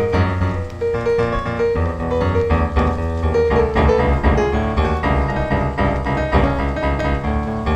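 Background piano music: many quick notes over a steady bass line.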